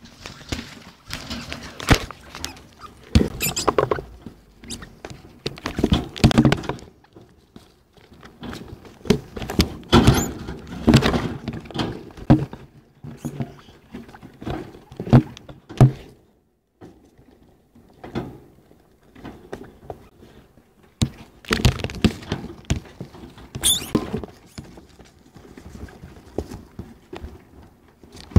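Pet degus (Octodon degus) scrabbling and moving about right at the microphone: irregular rustling, scratching and knocking thumps, with a short lull just past halfway.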